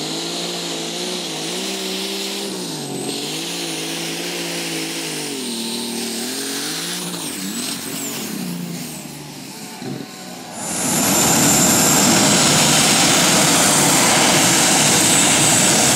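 Modified pulling tractor's engine under full load down the track, its pitch surging up and down with a high turbo whistle above it. About ten and a half seconds in this gives way to a much louder, steady rushing roar with a high whine from another puller at full power.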